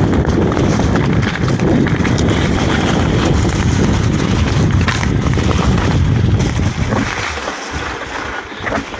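Wind rushing over the microphone as a mountain bike rides downhill, with a heavy low rumble that eases about seven seconds in.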